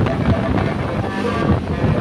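Road traffic running past, with wind buffeting the microphone in a steady rumble. A few faint short tones sit underneath.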